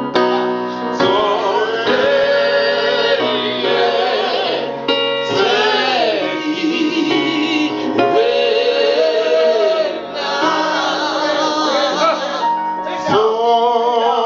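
A men's gospel vocal group singing together in long held phrases, backed by an electronic keyboard.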